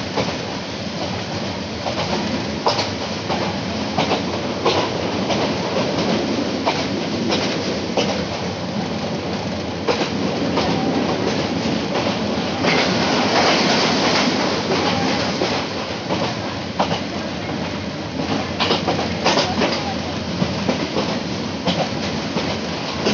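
Egarosindur Godhuli passenger train running at speed, heard from inside a coach at an open window: a steady rumble and rush, with the wheels clicking irregularly over rail joints. The noise swells louder for a couple of seconds about halfway through.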